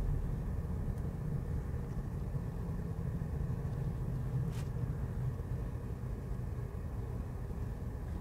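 Low, steady rumble of engine and tyre noise inside the cabin of a Peugeot car moving slowly. A single light click comes about halfway through.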